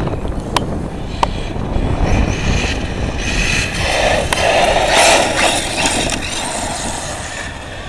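Electric radio-controlled buggy driving on a paved path, its motor and tyres getting loud as it passes close by about four to five seconds in, then fading. Two short clicks about half a second and a second in.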